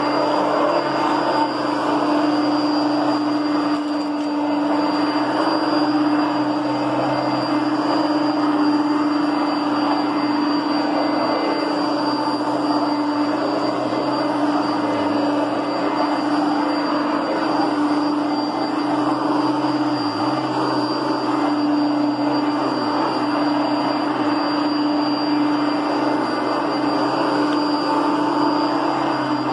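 Kenmore Heavy Duty Plus upright vacuum cleaner's 6.4-amp motor running steadily: a constant drone with a thin high whine on top.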